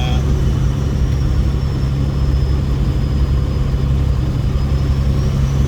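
Semi-truck's diesel engine running steadily with a deep, even drone, with a faint high whine that sinks slowly and rises again near the end.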